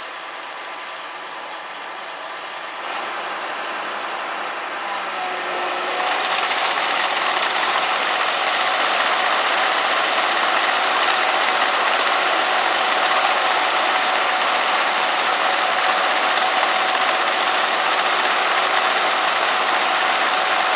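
Excavator-driven Dragflow slurry pump starting up: a steady machine run grows louder, and about six seconds in the pump's discharge comes through as a loud, steady rush of water gushing out and splashing down, with a faint steady whine under it.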